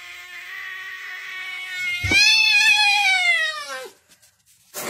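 Domestic cat yowling: a long, steady, low yowl, then a thump about two seconds in and a louder yowl that rises and falls before breaking off just before four seconds.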